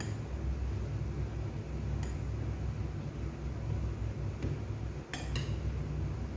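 Cutlery clinking against a dish a few times while eating: once about two seconds in, and a quick pair near the end, each with a short ring. A steady low hum runs underneath.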